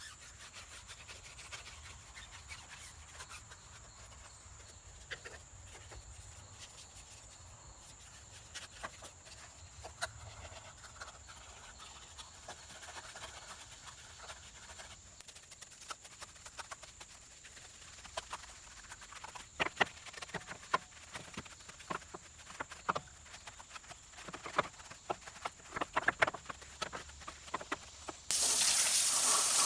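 Brush scrubbing a wheel and tire: irregular scratchy strokes that grow louder and quicker in the second half. Near the end a pressure-washer spray starts with a sudden loud hiss.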